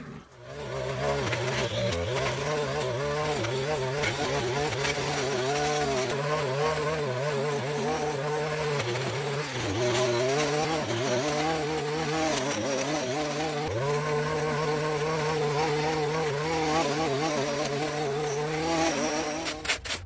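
A small engine running with its revs wavering up and down.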